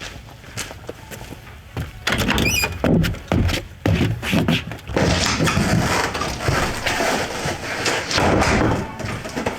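A run of thuds and knocks that starts about two seconds in and grows busier from about five seconds. A short, wavering high chirp comes about two and a half seconds in.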